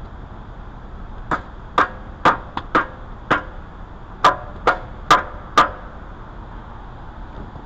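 A run of about ten sharp knocks, in two bunches over about four seconds, as the upper oil pan is worked up into place against the engine.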